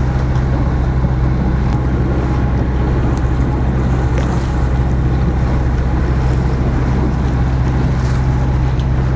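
Morgan 41 Out Island sailboat's inboard engine running steadily while motoring at about 4.5 knots, a constant low hum under the rush of water and wind.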